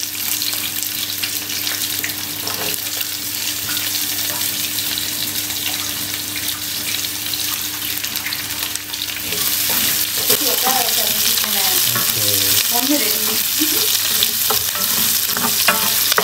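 Chopped onion and curry leaves sizzling in hot oil with mustard seeds and fenugreek in a non-stick frying pan, stirred with a wooden spoon. The sizzle gets louder about two-thirds of the way through.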